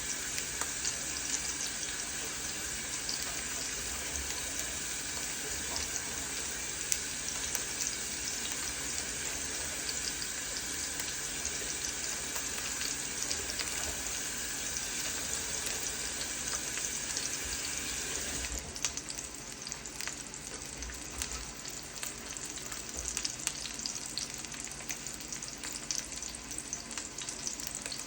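A kitchen tap running steadily over ribeye steaks sizzling in a pan; about eighteen seconds in the water shuts off, leaving the crackling sizzle of the searing steaks.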